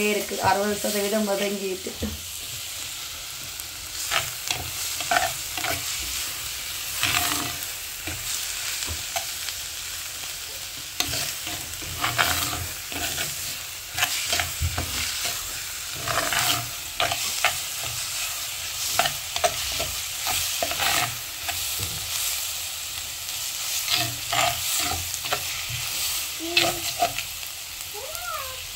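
Chopped onions and green chillies frying in a clay pot, sizzling steadily, with a spoon scraping and knocking irregularly against the pot as they are stirred.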